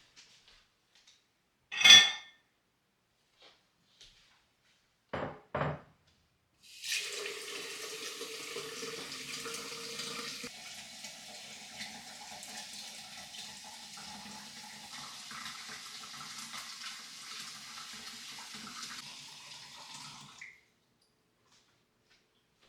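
A sharp clack, then two quick knocks, then water runs from a tap into a sink for about fourteen seconds, its note changing partway through, before it is shut off.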